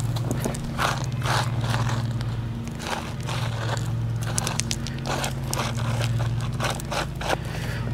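Gritty scraping and crunching of loose gravel and broken asphalt as it is scooped out of a driveway pothole with gloved hands, in short irregular strokes over a steady low hum.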